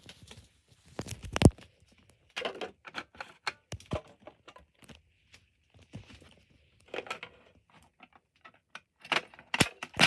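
Handling noises: a sharp knock about a second and a half in, then scattered clicks, rattles and plastic-bag crinkling as fire alarm devices and bagged hardware are moved about on a table.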